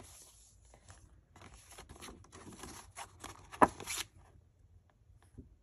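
Paper packaging cards and a metal cutting die rustling and sliding as they are handled, with one sharp tap about three and a half seconds in.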